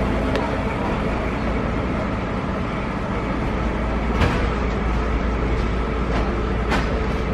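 Open sightseeing trolley train running on the rails: a steady rumble with a few sharp knocks, the loudest about four seconds in and another near the end.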